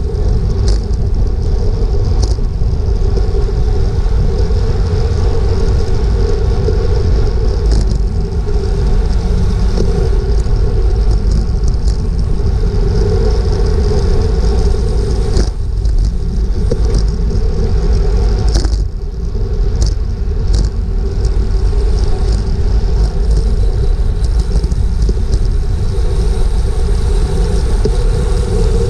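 Wind buffeting a GoPro microphone on a road bike racing in a pack at about 24 mph: a loud, steady rumble mixed with road and tyre noise, with several sharp clicks scattered through it.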